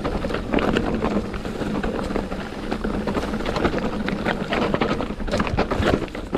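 Mountain bike rolling fast down a loose rocky trail: tyres crunching and clattering over stones and the bike rattling, with many sharp knocks over a rough rushing noise and a steady low hum underneath.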